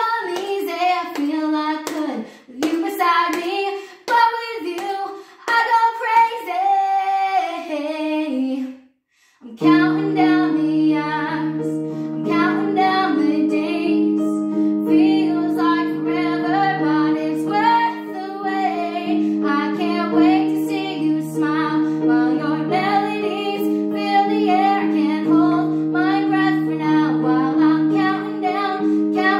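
A woman singing to her own digital keyboard accompaniment. About nine seconds in the music breaks off briefly, then resumes with held keyboard chords under the melody.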